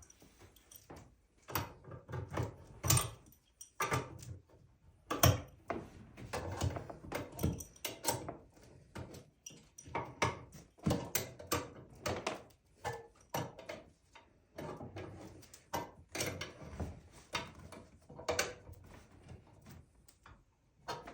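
Nuts being tightened onto the hex-head screws of a chair frame with a wrench: irregular clicks, taps and knocks of the tool and the metal parts.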